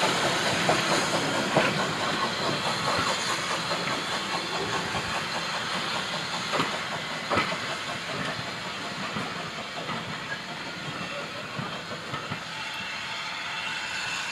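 Railway passenger coaches rolling away over the track, with occasional sharp wheel clicks over rail joints and a steady hiss, the sound fading as the train recedes.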